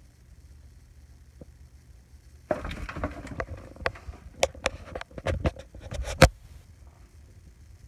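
Handling noise: rustling with a quick run of sharp clicks and knocks, starting about two and a half seconds in and stopping shortly before the end. The loudest knock comes just before it stops.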